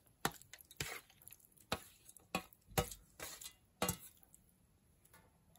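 Hands working raw chicken pieces through a thick yogurt-and-spice marinade paste: a string of short, wet squelches and soft knocks, about one or two a second, dying away near the end.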